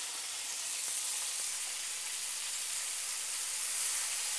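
Redfish fillets pan-searing in hot canola oil in a skillet, sizzling steadily.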